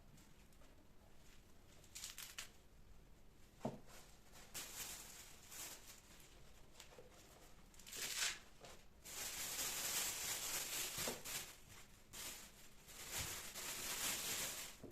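Rustling and crinkling with a few light knocks as groceries are unpacked and handled, the rustling steadier and louder in the second half.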